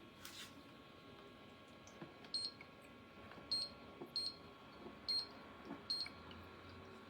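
Five short, high electronic beeps at uneven intervals from the KZF top-fill humidifier's control panel as its buttons are pressed.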